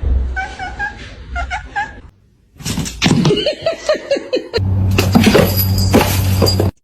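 Several short clips cut one after another: a cat's calls, then people laughing in quick bursts, then a last stretch over a steady low hum.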